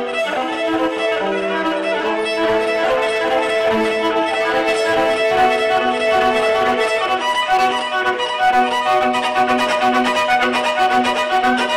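Live small-group jazz with a violin leading over band accompaniment. The violin holds long notes through the first half, and a low note repeats steadily underneath in the second half.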